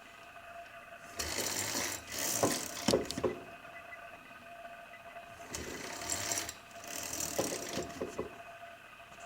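Pull-out kitchen faucet spray wand being worked: two spells of about two seconds of hissing and rattling, a few seconds apart, with some sharp knocks in the first.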